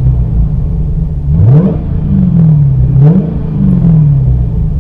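Dodge Challenger SRT Hellcat Redeye's supercharged V8 revved in two blips, each rising quickly in pitch and falling away more slowly, over a steady low rumble.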